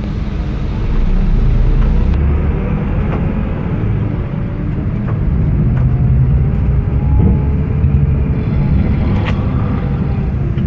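Engine and road rumble of a moving vehicle heard from inside its cabin: a heavy low drone with faint engine tones drifting up and down in pitch, and a few short clicks.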